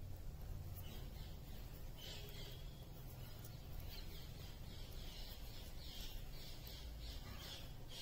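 Faint room hum with soft, repeated rustling and scraping as yarn is worked on a circular knitting needle, growing more frequent in the second half.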